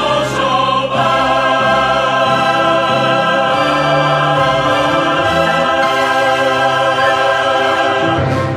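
A choir holding sustained chords over an orchestral accompaniment, as the song's ending. The sound fades out at the very end.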